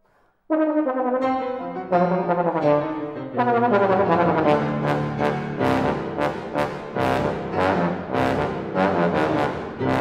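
Bass trombone playing sustained, shifting notes with piano accompaniment. The trombone comes in after a brief silent pause about half a second in, and from about three seconds in the piano strikes repeated chords beneath it.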